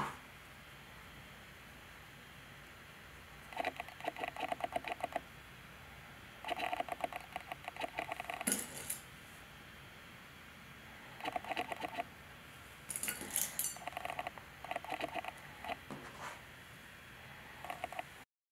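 Hands handling and pinning swim fabric: short spells of rustling and small sharp clicks, several times over with quiet between.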